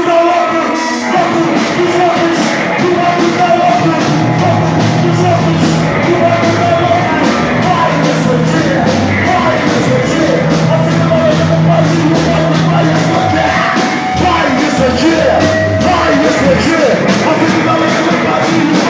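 Heavy rock music with yelled vocals over drums, bass and guitar.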